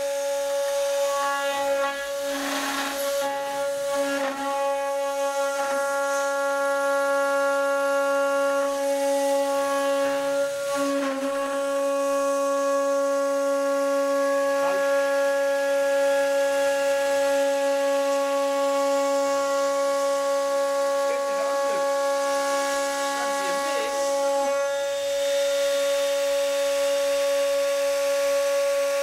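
CNC router's spindle running at high speed with the end mill cutting aluminium plate: a steady, loud, high whine with several tones stacked above it. The rougher noise of the cut swells briefly about two, four and eleven seconds in.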